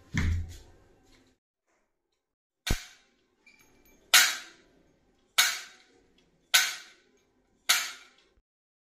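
Four gunshot sound effects about a second apart, each a sharp crack that dies away quickly, preceded by a single short click; a brief low thump opens.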